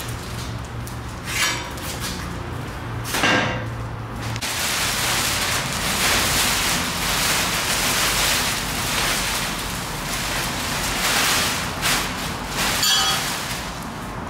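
Clear plastic sheeting rustling and crinkling as the protective cover is pulled off a new motorcycle. A couple of metal clanks from the steel shipping crate's frame come early, and another near the end.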